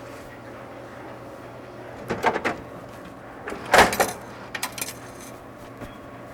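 A few knocks and rattles, the loudest a short clatter near the middle, over a steady low hum.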